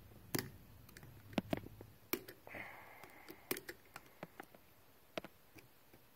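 Irregular small metal clicks and taps as a hand tool works a small advance spring onto its post among the weights of an MSD distributor's mechanical advance, with a brief scrape about two and a half seconds in.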